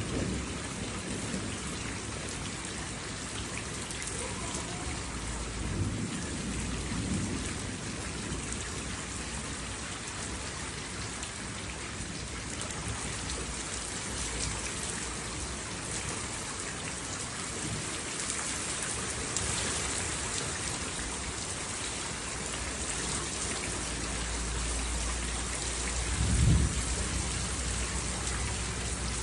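Steady rain falling, with low rolls of thunder rumbling a few times; the loudest roll comes near the end.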